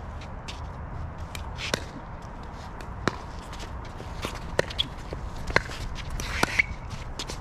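Pickleball rally: paddles striking the hard plastic ball in sharp pops, roughly one every second or so, with fainter clicks in between.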